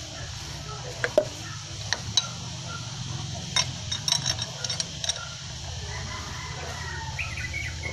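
Scattered light metallic clinks of a wrench on the crankshaft bolt as a Suzuki 12-valve engine is turned over by hand to bring cylinder one to top dead centre. A steady low hum runs underneath.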